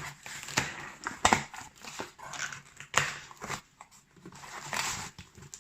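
Packaging being handled during an unboxing: crinkling and rustling with several sharp clicks and knocks.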